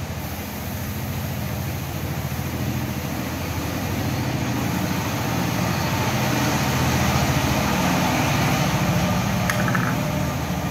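A steady low motor hum that swells louder through the middle, with a short sharp click near the end.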